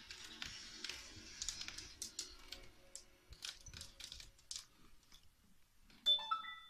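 Irregular light clicking of a dog's claws on a hard floor as it walks around a cat. Near the end comes a short, loud run of clear high tones, stepping up in pitch.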